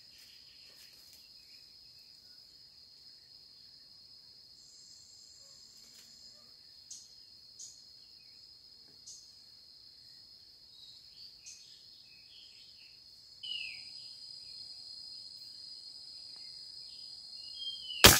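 A steady high-pitched insect drone with a few short chirps over it, growing louder about two-thirds of the way in; near the end, a single sharp crack as a scoped rifle is fired at a bird.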